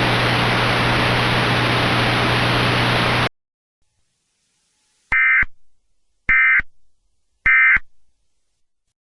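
Emergency Alert System end-of-message audio: a loud, steady static hiss cuts off suddenly about three seconds in, and after a short silence come three short, identical warbling data bursts about a second apart, the SAME end-of-message (EOM) code signalling that the alert is over.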